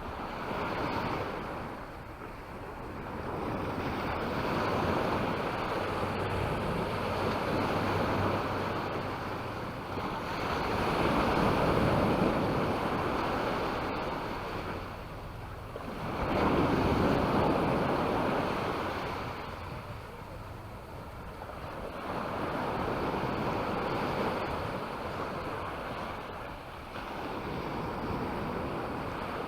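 Small sea waves breaking and washing up a sandy beach, the hiss of the surf swelling and fading every few seconds, with two louder surges in the middle.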